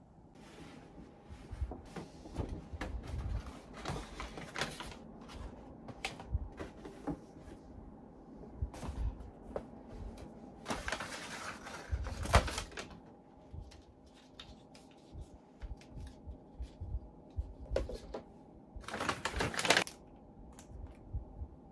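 Paper shopping bags, a cardboard cake box and small wrapped packaging being handled and unpacked: rustling and crinkling paper with light knocks and taps, and two longer, louder rustles about halfway and near the end.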